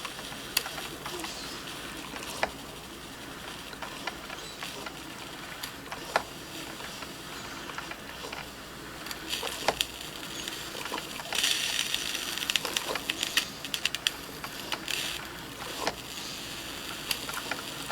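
Drip coffee maker brewing: a steady low hiss with scattered small clicks and drips, and brief louder hissing spells about twelve and fifteen seconds in.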